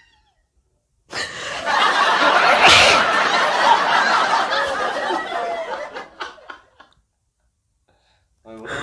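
Laughing and giggling, starting about a second in and lasting about five seconds, with one sharp loud burst near the three-second mark.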